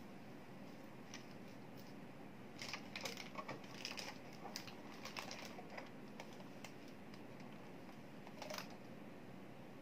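Small plastic clicks and taps from hands fitting a label roll into an open Xprinter 420B thermal label printer and handling its plastic case: a run of clicks a few seconds in, and one more short burst near the end.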